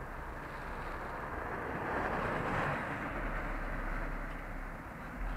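A hatchback car driving slowly past on an asphalt lane. Its tyre and engine noise swells to a peak about two and a half seconds in, then fades as the car moves away.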